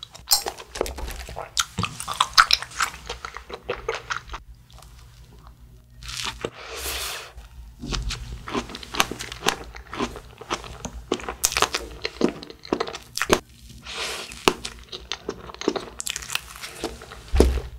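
Close-miked eating: crunchy bites and chewing of a cream-filled baked snack, with many sharp crackles throughout.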